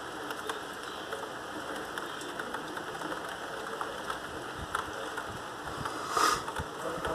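Heavy rain falling steadily as an even hiss, with a brief louder rush about six seconds in.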